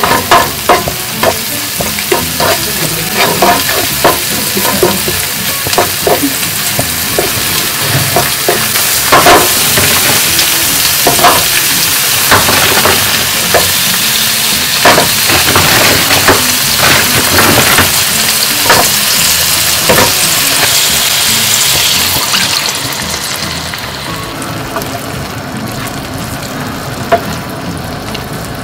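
Minced garlic and anchovy paste sizzling in olive oil in a non-stick frying pan, with the clicks and scrapes of a wooden spoon stirring. About 23 seconds in the sizzle drops to a quieter cooking sound as thawed frozen spinach is stirred in its own liquid.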